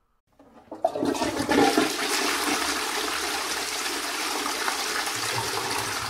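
Toilet flushing: a rush of water that builds up over the first second with some gurgling, runs steadily, and fades out near the end.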